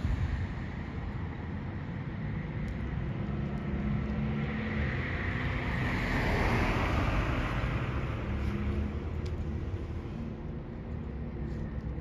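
Street traffic: a passing car whose noise swells to a peak about halfway through and then fades, over a steady low rumble.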